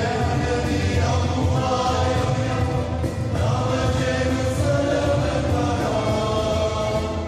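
A choir singing a Sinhala Catholic entrance hymn over instrumental backing, in two long sung phrases with a short break about three seconds in.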